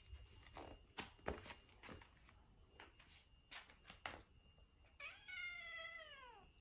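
A domestic cat gives one long meow about five seconds in. It rises slightly, then glides down at the end: a begging call asking its owner for food. Before it come a series of light steps and clicks on a wooden floor.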